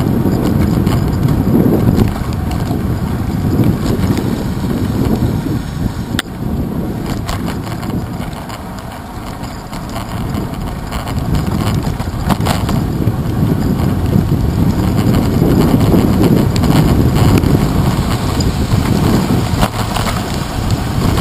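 Steady low rumble of wind and road vibration on a handlebar-mounted action camera as a bicycle rides over wet pavement. It eases about eight to ten seconds in and grows again later, with a couple of sharp knocks about six and twelve seconds in.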